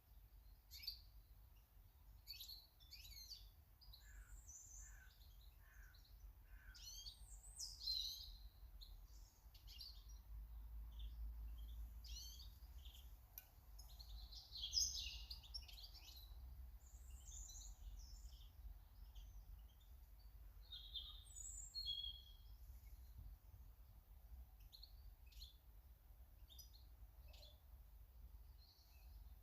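Small garden birds chirping and singing faintly, many short chirps and trills one after another, over a steady low rumble.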